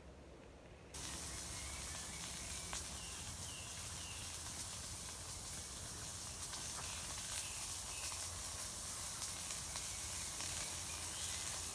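Steady sizzling hiss from a pan cooking over a campfire, with scattered small crackles; it starts suddenly about a second in and stays level.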